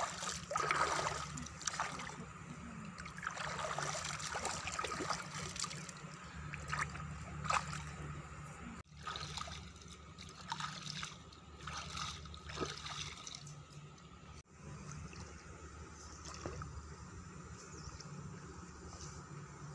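Shallow stream water splashing and sloshing as hands scoop and stir in it, with trickles running off; the splashes are busiest and loudest in the first half, then lighter and sparser.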